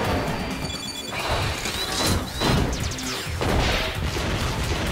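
Animated battle sound effects: a run of explosions and crashes, several sudden blasts about a second apart, over background music.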